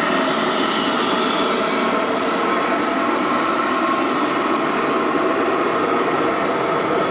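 Babington waste-oil burner rig running steadily, its small electric air compressor supplying the atomising air, heard as a constant mechanical hum with a steady whine.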